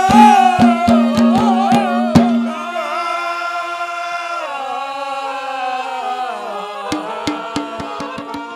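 Haryanvi ragni music: a male voice holds a wavering note over a harmonium drone and quick dholak strokes for about two seconds. The harmonium then plays on alone in held chords that step down in pitch, and the drum strokes come back near the end.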